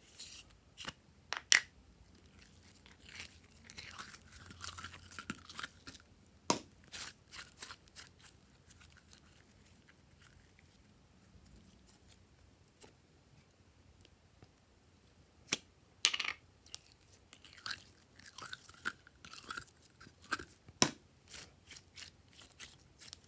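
Hands squeezing and handling glossy slime and its plastic containers: scattered sharp clicks and snaps, with two stretches of dense, sticky crackling.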